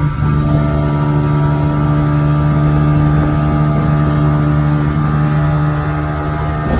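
Motorboat engine running at a steady pitch, a constant hum with no change in speed.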